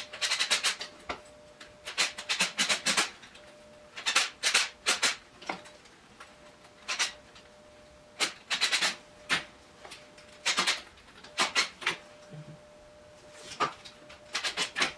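Quick runs of sharp clicks and taps from small hard parts being handled, coming in clusters every second or two, over a faint steady hum.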